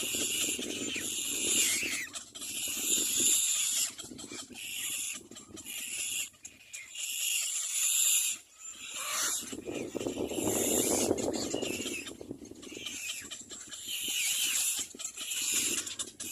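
Little black cormorant chicks calling in a string of harsh, raspy bursts, each about a second long, with short breaks between them.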